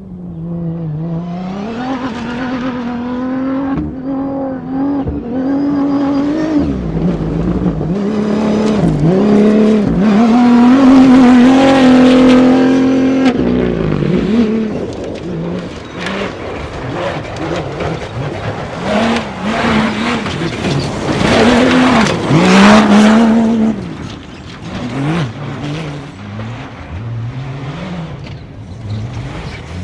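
Cross-country rally cars running hard, engines revving up and dropping back again and again through gear changes. They are loudest around the middle and again about three quarters through, as cars pass close by.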